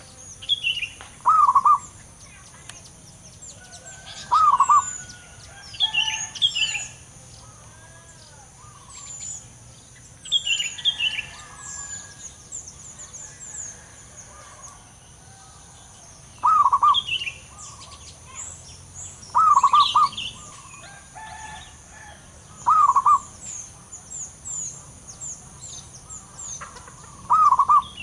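Zebra dove giving short, rolling cooing calls, about six in all with a long pause in the middle. Other small birds chirp faintly and higher, over a steady high hiss.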